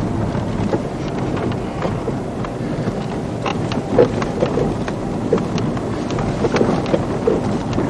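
Car driving slowly over a rough track, heard from inside the cabin: a steady low rumble with scattered knocks and rattles.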